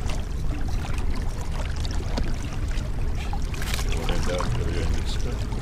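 A boat's motor running at trolling speed, a steady low rumble, with water splashing and lapping against the hull.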